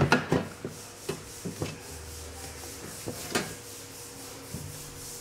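Irregular rubbing and scraping strokes with a few sharper knocks among them, over a faint steady hum.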